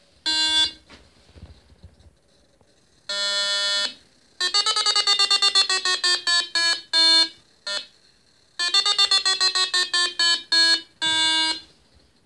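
Home-built Arduino glider vario beeping through its small speaker: a short beep, a longer steady tone, then runs of rapid beeps, about six a second, whose pitch slowly falls before they spread into longer separate beeps. This is the vario's climb tone reporting lift.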